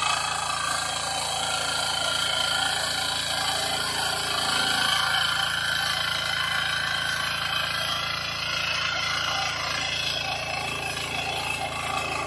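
KisanKraft KK-IC-350D mini power tiller's diesel engine running steadily under load as its rotary tines till soil.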